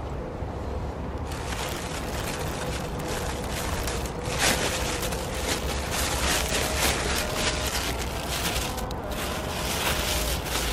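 Pine cones and kindling burning in a fire pit, crackling and popping densely from about a second in, over a low steady rumble.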